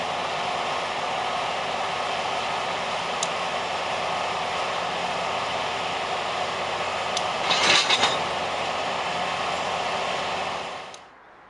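Steady running noise of railway equipment on the move, with a few light clicks, a louder swell of noise about eight seconds in, and a sudden drop to much quieter near the end.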